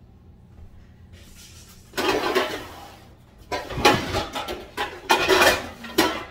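Several bursts of clatter and rustling as things are handled and moved about on a kitchen counter.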